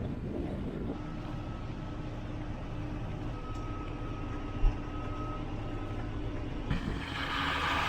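Tractor engine running steadily under way, with a single sharp knock about halfway through. A louder rushing noise comes in near the end.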